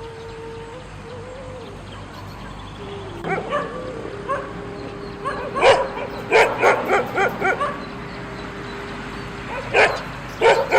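A dog barking in quick runs of short, high yelping barks, about seven in a row past the middle of the clip and more near the end, with a thin steady whine running underneath between them.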